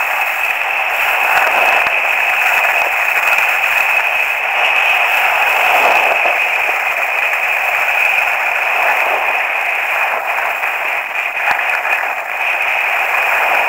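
Steady, loud rushing noise of skiing downhill, wind over a helmet-mounted action camera's microphone and skis sliding on packed snow, with a few faint clicks.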